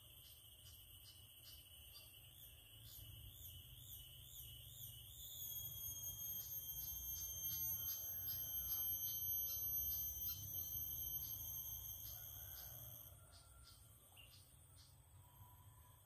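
Tropical forest insects shrilling: a steady high-pitched whine over a fast, even pulsing, its pitch wavering from about two to five seconds in. It swells louder in the middle, then fades near the end.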